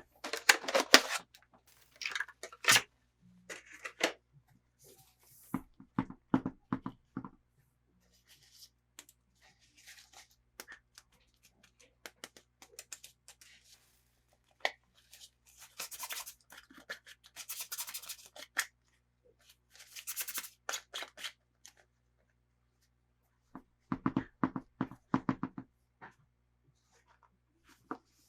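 Toy packaging being handled and opened by hand: irregular bursts of crinkling, rustling and tearing, with small clicks and short pauses between them.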